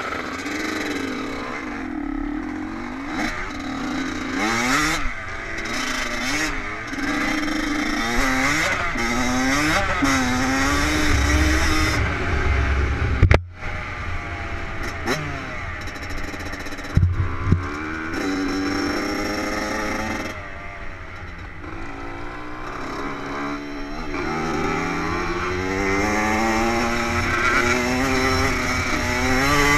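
Two-stroke dirt bike engine revving hard and easing off again and again as the rider shifts through the gears, with a sharp knock about 13 seconds in and two more near 17 seconds.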